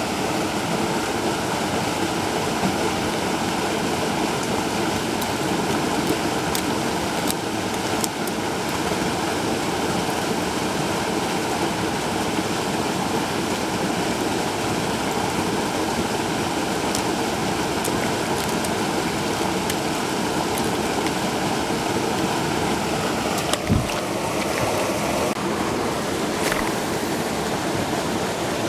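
Spillway outflow: water pouring steadily from a culvert pipe into a pool, a constant rushing. One short thump about three quarters of the way through.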